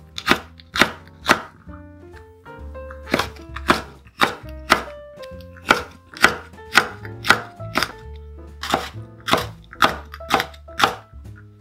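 Chef's knife shredding green peppers on a wooden cutting board: sharp knife-on-board knocks about twice a second, with a short pause about two seconds in. Background music with a bass line plays underneath.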